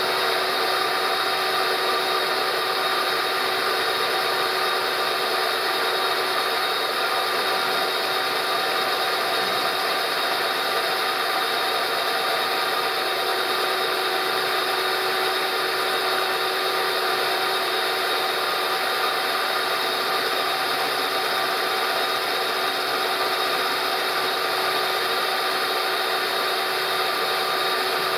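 Milling machine running steadily: an even mechanical hum with several steady whining tones, no change in speed or load.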